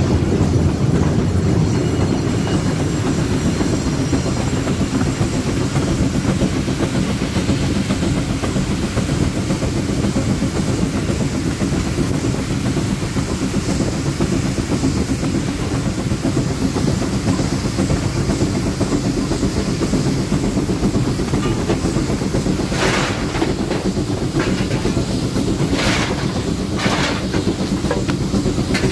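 A 1947 Baldwin Mikado steam locomotive and its train running along the track with a steady rumble. Near the end come four short, brighter bursts of noise about a second apart.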